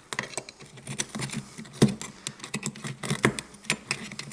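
Light, irregular clicking and clinking of thin steel clutch plates and friction discs from an automatic transmission clutch pack as they are lifted out and handled.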